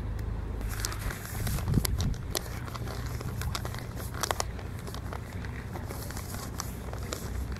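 Small waves lapping and splashing against a stone lakeshore wall: irregular clicks and crackles over a low steady rumble, with a louder splash about two seconds in.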